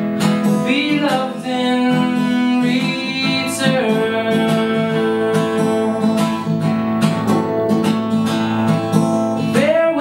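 Acoustic guitar strummed and picked in a slow accompaniment, with wordless sung notes held and sliding over it.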